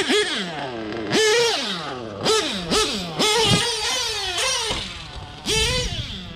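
Novarossi .25 two-stroke nitro engine in an RC truggy revving hard and falling off again, over and over, as the throttle is blipped and released, with a low rumble about five and a half seconds in. The engine is new, still being broken in and set rich.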